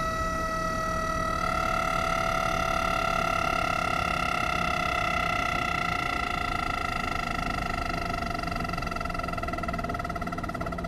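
A train giving out a long, steady, high-pitched multi-note tone, with a second note joining about a second in, fading a little near the end.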